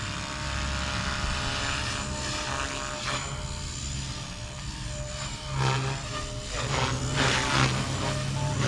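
Blade Fusion 180 electric RC helicopter flying in its stunt 1 (idle-up) mode: a steady motor and rotor hum, with two swelling whooshes of rushing noise about five and a half and seven seconds in.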